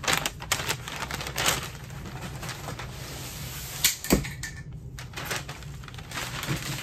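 Kraft packing paper crinkling and rustling as a large cardboard rocket body tube is pulled out of its cardboard shipping box and unwrapped, with scrapes and clicks and a loud knock about four seconds in.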